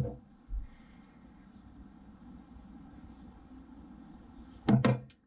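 Crickets trilling steadily in a high, even tone. A short low thump comes about half a second in, and a brief burst of voice comes near the end.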